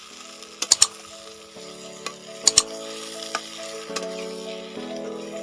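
Food sizzling as it fries in a pot and is stirred, with a utensil knocking sharply against the pot in two quick pairs. Underneath, background music holds sustained chords that change every second or so.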